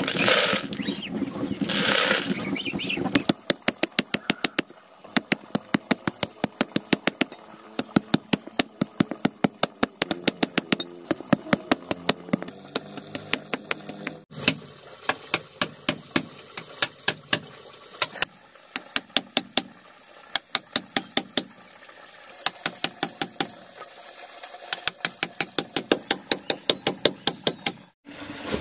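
Hatchet chopping into a block of wood, a long run of sharp strikes about three a second with short pauses between runs.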